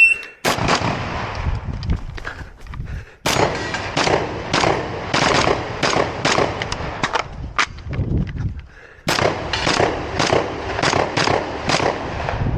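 Shotgun fired in rapid strings at a competition stage, about two shots a second, right after a shot timer's start beep. One shot comes about half a second in, then a pause of a couple of seconds, then a long fast string, a short break a little past the middle, and another fast string to the end.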